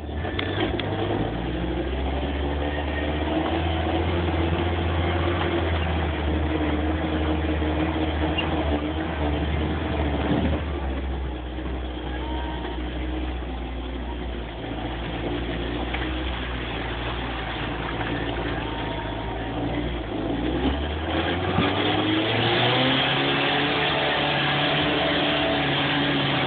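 Jeep engine running with an exhaust leak. The note is steady for most of the stretch, then rises about twenty seconds in as the engine revs up, and holds at the higher pitch.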